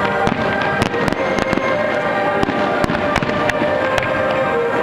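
Aerial fireworks shells bursting in an irregular string of sharp bangs, over music playing along with the display.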